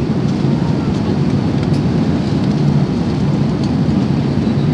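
Steady roar of an Airbus A380 in flight heard inside the passenger cabin: engine and airflow noise, deep and even throughout.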